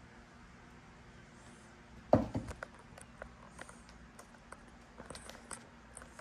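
Handling noise from unboxing a mechanical keyboard: a single hard thump about two seconds in, then scattered light clicks and taps.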